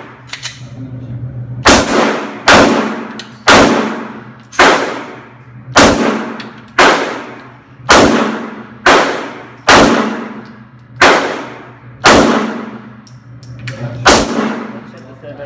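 Glock 19 9mm pistol fired at a steady pace, about one shot a second, a dozen shots with a short pause before the last one. Each sharp crack rings and echoes off the walls of the indoor range.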